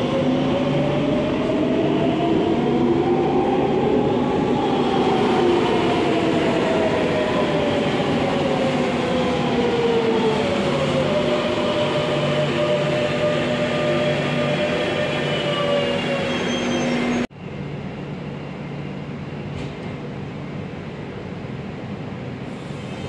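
Madrid Metro electric trains' traction motors whining over rail running noise. A whine rises for the first few seconds and then falls slowly, as a train speeds up and then brakes. After a sudden cut about 17 seconds in, the sound is quieter, and near the end a multi-tone whine rises again as a train starts off.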